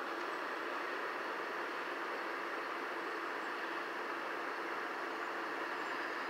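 A train running, heard as a steady, even rushing noise with no sharp events.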